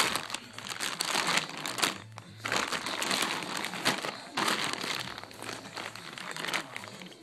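Plastic wrapping crinkling in irregular bursts as it is handled and pulled off a new car alternator.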